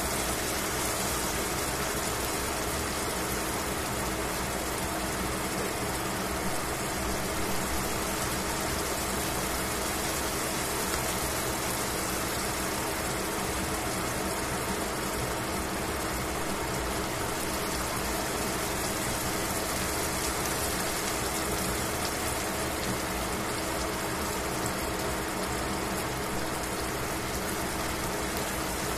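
Pork shoulder steak frying gently in oil in a stainless steel pan: a steady sizzle over a steady low hum.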